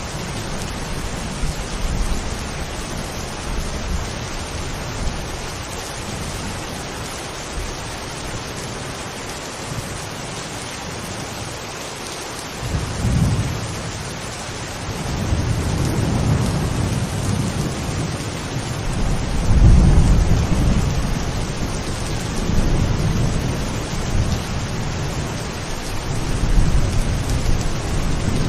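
Steady rain with rolling thunder. The deep thunder rumbles die down for a few seconds before halfway, then swell up again several times, the loudest about two-thirds of the way through.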